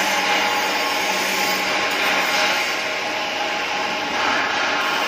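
Steady, loud metalworking noise in a steel fabrication shop: an even hiss with a faint low hum underneath, from the welding and cutting work going on around the honeycomb beams.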